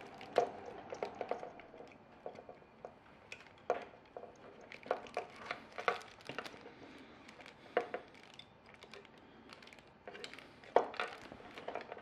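Irregular small clicks, taps and rustles of hands handling a plastic thermostat fascia and connecting wires to a fridge thermostat, with a few sharper knocks now and then.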